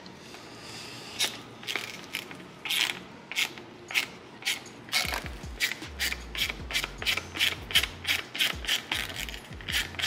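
Torx screwdriver backing out the small machine screws from an aluminium DME (engine computer) case: a series of short scraping strokes as the screw is turned. The strokes are spaced out at first and quicken to about three a second from about halfway.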